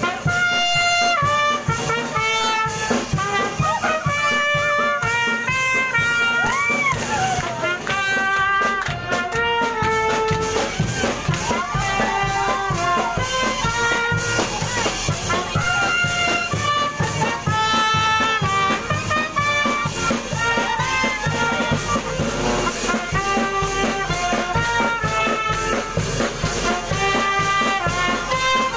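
A small live band of clarinet and brass horns playing a tune, moving from note to note in a continuous melody.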